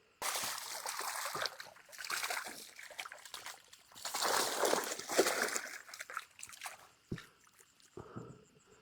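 Water splashing and sloshing in irregular surges as a freshly caught fish is put into a large basin of water and thrashes.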